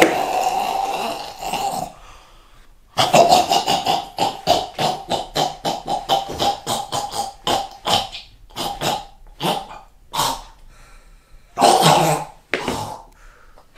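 A man's theatrical dying gasps and choking coughs, in quick rhythmic bursts of about four a second. After a short pause they run on steadily for several seconds, then thin out into sparser gasps with one last loud burst near the end.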